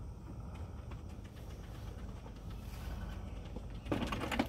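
Husqvarna Automower robot lawn mower driving over grass into its charging station, a steady low hum and rustle. Near the end it gives a short, louder rattling clatter as it reaches the dock.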